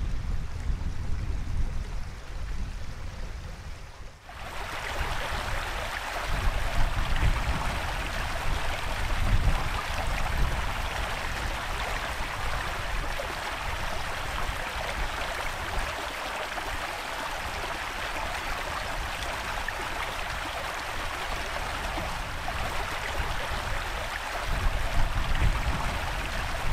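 Small moorland stream running steadily over stones, a constant rushing babble, with wind buffeting the microphone in low rumbles. For the first four seconds there is only the wind rumble; the water sound comes in abruptly at a cut.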